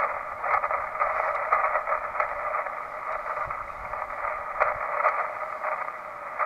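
Transceiver speaker playing 40-meter band static in single sideband: a steady, narrow hiss with faint crackles as the receiver listens for replies to a CQ call.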